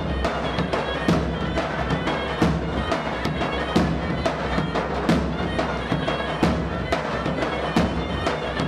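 Albanian folk dance music: a reed wind instrument plays a sustained melody over a steady drum beat, with heavy drum strokes about every second and a half and lighter ones between.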